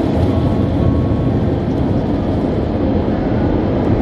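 Automatic car wash machinery running, a loud steady low rush heard from inside the car's closed cabin.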